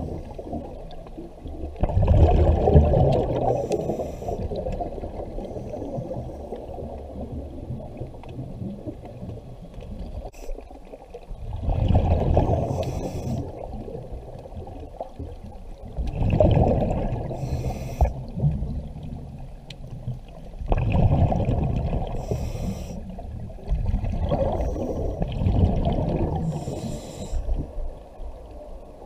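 Scuba diver breathing through a regulator underwater: five bursts of exhaled bubbles rumbling and gurgling, a few seconds apart, with quieter water noise between them.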